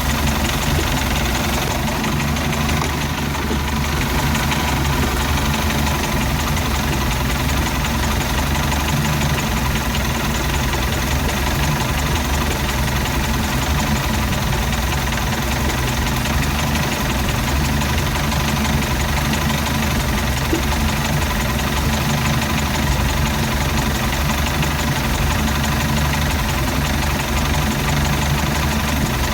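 MerCruiser 3.0 four-cylinder sterndrive engine idling roughly and steadily, with no change in speed.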